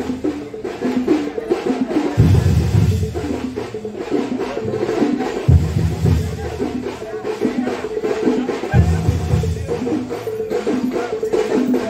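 Percussion-led music with a steady repeating rhythm: a deep drum beat comes back about every three seconds under quicker, brighter knocking strokes.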